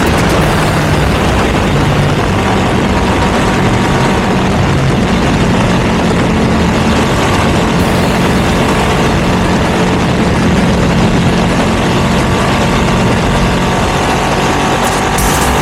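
Ducati V2 V-twin motorcycle engine running through a Termignoni exhaust at fairly steady revs, with a broad rushing noise throughout.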